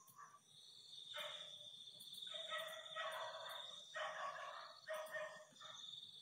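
Night insects trilling, a high, steady, pulsing buzz that weakens a little past the middle. Irregular patches of duller, lower noise come and go underneath, each about half a second to a second long.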